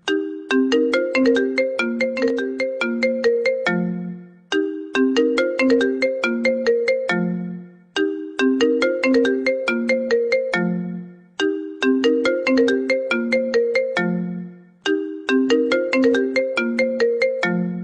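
iPhone ringtone playing: a short melody of quick, bell-like pitched notes that ends on a lower held note, repeating about every three and a half seconds.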